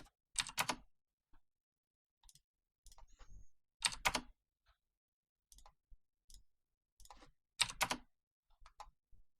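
Computer keyboard and mouse clicking: scattered single clicks, with three louder clusters of clicks about half a second in, around four seconds and near eight seconds.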